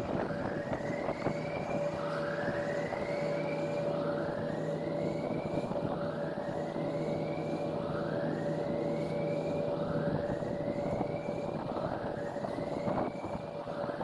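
Alarm siren sounding a repeating rising whoop, each sweep about a second long and coming about every second and a half. A steady tone and a low hum sound beneath it.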